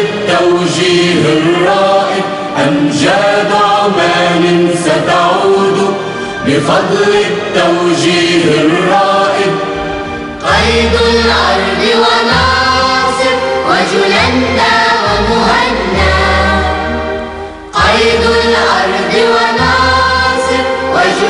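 Choir singing an Arabic anthem over musical accompaniment. About halfway through, a deep bass part comes in. There is a brief drop just before the last few seconds.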